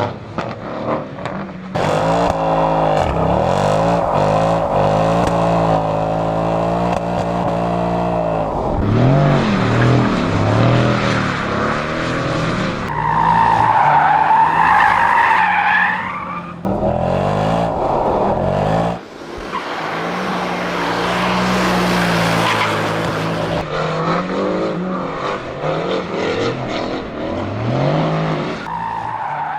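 Mercedes-AMG C63 being drifted: the engine revs up and down hard under throttle while the tyres squeal, the squeal loudest around the middle and again at the end.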